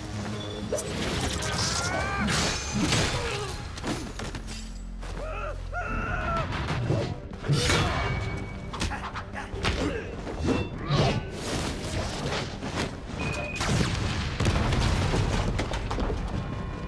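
Fight sound effects from an animated film: a rapid series of blows, thuds and crashes with short grunts, over background music.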